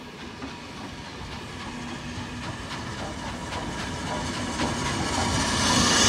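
BR Standard Class 4MT 4-6-0 steam locomotive drawing into a station, its wheels clicking over the rail joints and growing steadily louder. Near the end a loud rush of steam hiss comes as the engine passes right underneath.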